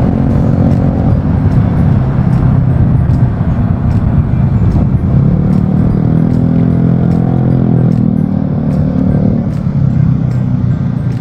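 Motorcycle engine running under way in city traffic, heard from the bike with steady road and wind noise; the engine note rises as it speeds up about halfway through.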